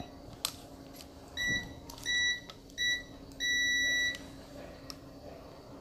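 Digital multimeter's continuity beeper sounding as the probes touch test points on an LCD panel board: three short beeps, then one longer beep of nearly a second. Each beep means the probes have found an electrical connection between the points. A couple of faint clicks come between the beeps.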